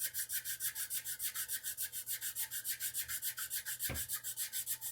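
Sandpaper rubbing fast back and forth across a wooden guitar neck, hand-sanding it to shape, about six or seven even strokes a second, with one brief knock about four seconds in.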